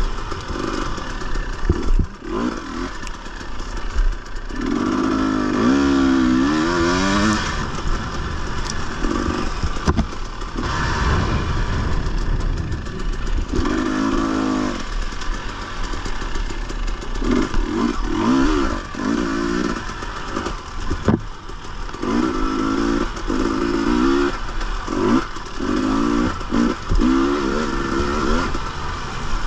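Dirt bike engine under hard riding, revving up and dropping back again and again as the throttle is worked. Sharp knocks and rattles come through it now and then.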